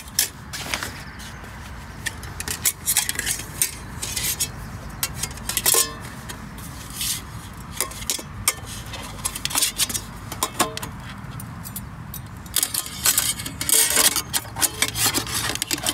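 Folding camp table's thin sheet-metal top and wire legs clinking and scraping as it is taken from its pouch and fitted together: irregular sharp metallic clicks, a few with a brief ring, busiest near the end.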